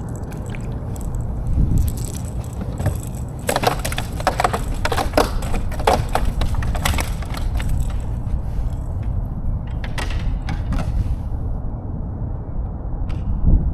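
Wind buffeting the microphone in a steady low rumble, with a run of sharp clicks and knocks in the middle from handling gear aboard the kayak.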